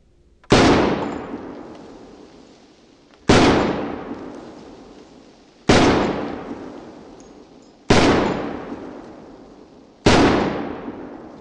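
Five shots from a Springfield M1A semi-automatic rifle firing 7.62×51mm M80 ball through a Yankee Hill Machine QD muzzle brake, spaced about two to three seconds apart. Each shot rings out and dies away over about two seconds.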